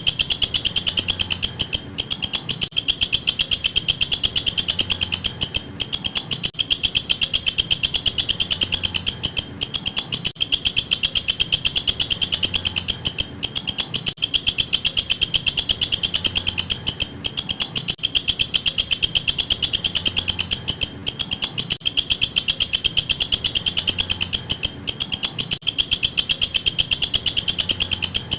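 Walang kecek singing insect calling: a loud, high-pitched, rapid pulsing trill, broken by brief pauses.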